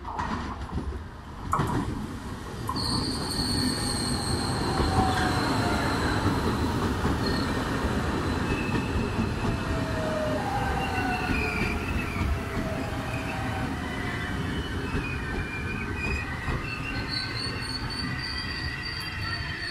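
Double-deck electric commuter train running along a station platform: a steady rolling rumble that builds over the first few seconds, with high, wavering wheel squeals on top. A sharp knock sounds about a second and a half in.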